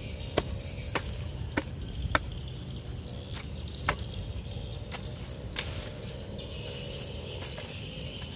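Long-handled hoe blade chopping into dry soil. A series of sharp strikes comes about every half second at first, then more sparsely, over a steady chirring of insects.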